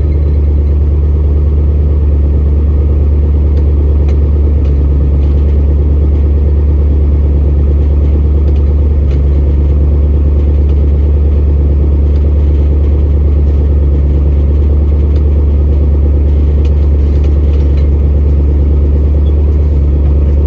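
Old pickup truck running steadily at an even pace: a loud, constant low engine and exhaust drone.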